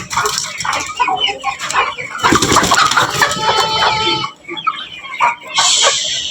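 Desi chickens clucking, several birds calling over one another in short overlapping calls.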